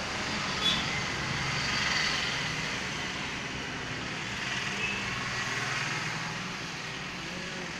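Steady background noise, a mix of low hum and hiss, with a sharp click a little under a second in.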